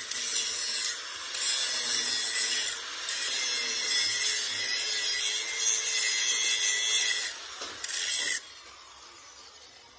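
Handheld angle grinder grinding down a weld bead on a steel excavator bucket, a dense, high grinding hiss that breaks off briefly a few times as the disc lifts from the metal. It stops about eight seconds in.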